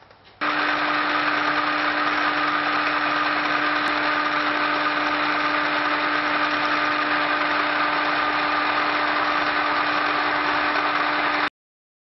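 Drill press running with a twist bit cutting into a steel nail-header blank: a steady motor hum with one constant tone under the cutting noise. It starts abruptly about half a second in and cuts off sharply near the end.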